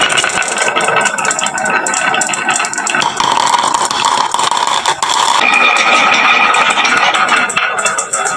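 Many marbles clattering and rolling down a HABA wooden marble-run slope in a dense, continuous stream of clicks.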